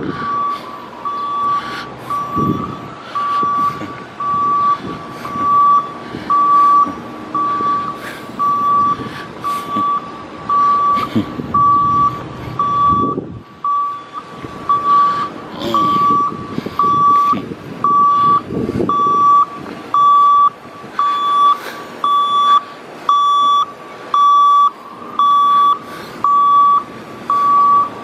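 Vehicle reversing alarm sounding a loud, steady single-pitch beep about once a second, over street traffic noise.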